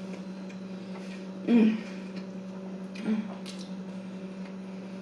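A person eating, with faint chewing and mouth sounds and two short hummed "mm" sounds of enjoyment, one about a second and a half in and a fainter one about three seconds in. A steady low electrical hum runs underneath.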